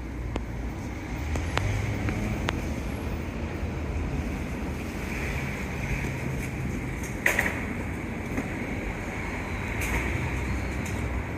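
Daikin RSRP80BAT package air-conditioner outdoor unit running with a steady low hum and a faint high whine. A few light clicks, and a sharper one about seven seconds in.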